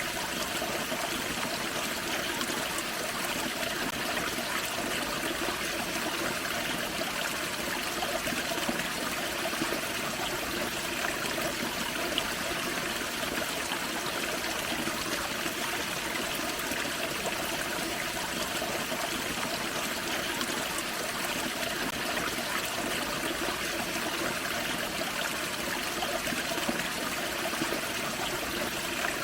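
Small waterfall on a forest creek: steady splashing and trickling of running water.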